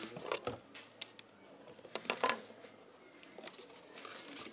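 Light clicks and taps from cardboard juice cartons and small craft parts being handled on a wooden table, the loudest a quick pair about two seconds in.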